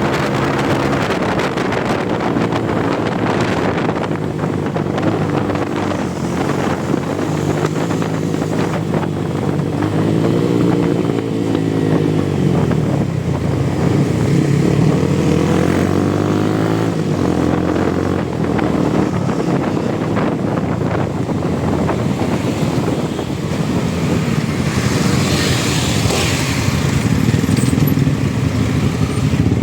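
Suzuki Gixxer motorcycle with its exhaust's dB killer removed, running loud and close, its engine note rising and falling as it revs and changes gear. A brief hiss comes in near the end.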